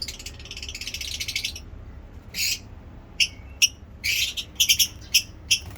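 Lovebirds chirping: a fast chattering run of high notes in the first second or so, then sharp single chirps and quick clusters of chirps.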